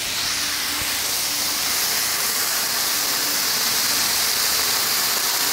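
Thinly sliced rib-eye steak and onions sizzling steadily on a hot plancha (flat-top griddle), a high, even hiss of frying.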